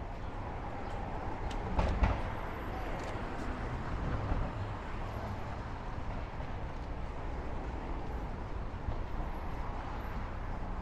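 City street traffic: a steady rumble of passing vehicles, with a few sharp clicks and a louder moment about two seconds in.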